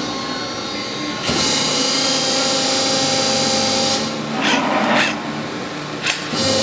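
Hydraulic power unit of a 1999 Cincinnati 60-ton CNC hydraulic press brake, with a 7½ hp motor, running with a steady multi-tone hum that dips slightly in level during the press's cycle. A click comes just over a second in, a louder rushing noise from about four to five seconds, and a sharp click about six seconds in.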